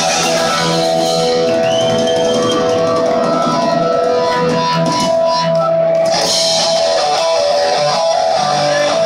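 Live heavy metal band playing loudly: electric guitars holding long sustained notes over a drum kit.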